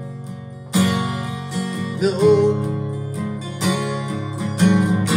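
A recorded song playing in a gap between sung lines, carried by strummed acoustic guitar, with strong strums about a second in and again near the end.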